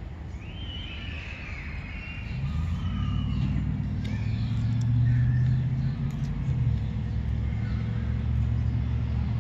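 Low engine rumble of a passing motor vehicle or aircraft, building up about two seconds in, loudest around the middle, then holding steady. Faint high calls sound over it in the first few seconds.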